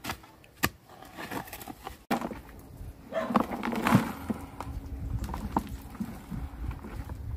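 Digging by hand: a few sharp knocks of a spade working into soil, then, after a cut, gloved hands scooping damp earth and dropping clods into a flexible plastic tub with soft thuds and scraping.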